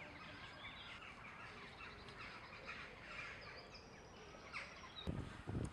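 Several birds chirping and singing. Two short low thuds come near the end.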